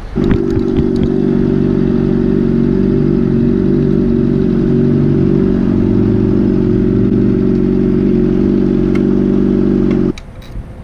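A motor vehicle engine running steadily at an even idle. It starts abruptly and cuts off suddenly near the end.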